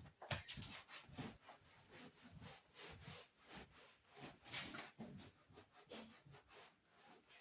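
Faint, irregular knocks and rubbing or scraping sounds, several a second and uneven, like hand work with tools on wood or a wall.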